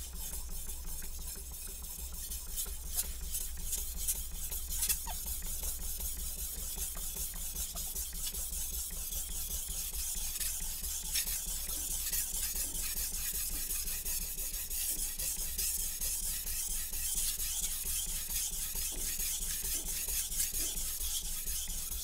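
Steel blade of a Shun Classic chef's knife stroked back and forth on a wet Naniwa Chosera 3000-grit whetstone: a continuous gritty scraping and rasping. The stone is cutting quickly into a dull edge, shedding metal into the slurry.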